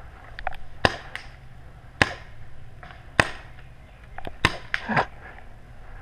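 Paintball fire: about seven sharp cracks of shots and paintball hits, spaced irregularly and sometimes in quick pairs.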